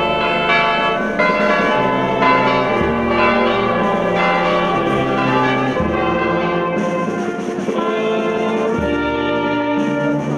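Church bells ringing in a loud peal of rapid, overlapping strikes, over held low notes of band music that change every second or two.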